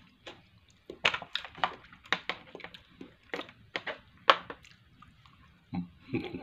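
A person chewing food close to the microphone, with a run of irregular wet mouth clicks and smacks, then a short low mouth sound near the end.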